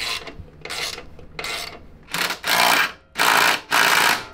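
Drive chain scraping against the new aftermarket chain tensioner's synthetic bushing as the rear axle is turned by hand, in about five strokes, the last three louder and longer. The noise comes from the tensioner, not the wheel bearings: it stops once the tensioner is loosened.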